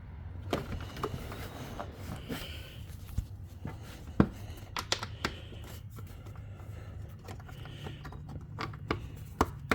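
Scattered plastic clicks and knocks as the Honda Accord's air filter box lid is pushed down and seated over the new filter, the sharpest click about four seconds in. A steady low hum runs underneath.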